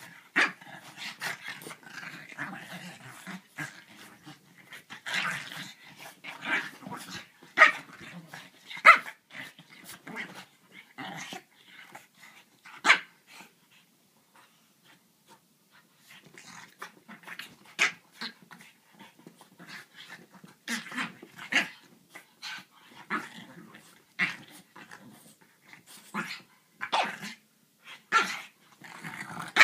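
A French bulldog and a griffon play-fighting, with growls and short, sharp barks that come in irregular bursts and ease off briefly about halfway through.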